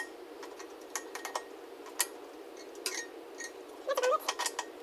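Irregular sharp clicks and light clinks of hand tools and metal fittings being handled, with a short cluster of squeaky chirps near the end.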